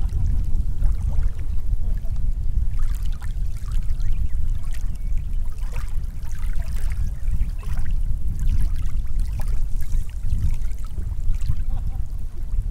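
Small waves lapping and trickling at the shoreline, with many little splashes. A heavy, constant low rumble of wind on the microphone runs underneath and is the loudest thing.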